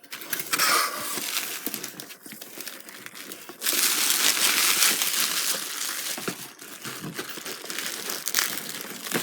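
Packing material crinkling and rustling as a model train car is unwrapped by hand. It grows louder a little over a third of the way in, then eases off.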